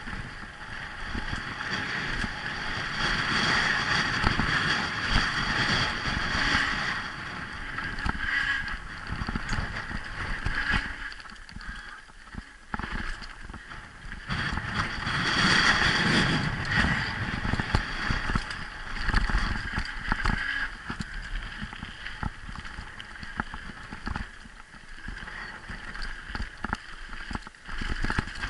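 Mountain bike riding fast down a dirt and gravel singletrack: wind rushing over the rider's camera microphone, tyres rolling over dirt and loose stones, and frequent clicks and rattles from the bike on rough ground. The noise rises and falls with speed, easing briefly twice.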